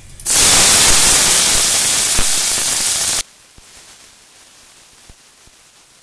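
Chopped tomato and capsicum hitting hot oil with whole spices in a kadai: a loud sizzle that cuts off suddenly about three seconds in, then faint light taps of a metal spatula stirring.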